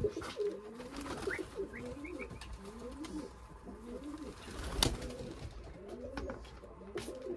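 Domestic pigeons cooing, many low rolling coos overlapping one after another. A single sharp click comes a little past the middle.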